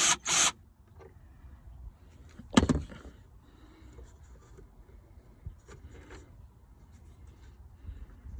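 Faint clicks and rustles of hand tools and screws being handled, with one sharp knock about two and a half seconds in. A short loud noise cuts off half a second in.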